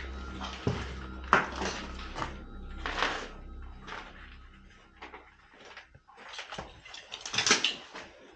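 Footsteps wading through shallow standing water on a cellar floor: a string of irregular short splashes, the loudest about seven and a half seconds in.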